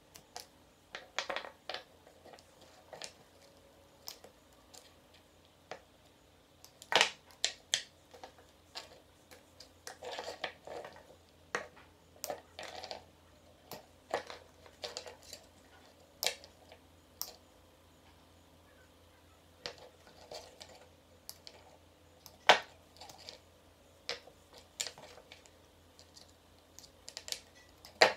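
Irregular small clicks, taps and scraping rustles from dirt-encrusted speaker crossover parts (capacitors, inductor coils, wire leads) being handled, pulled apart and set down on a hardboard board, with sharper snips or clicks that fit side-cutting pliers. The sharpest come about a quarter of the way in, about three quarters of the way in and at the very end.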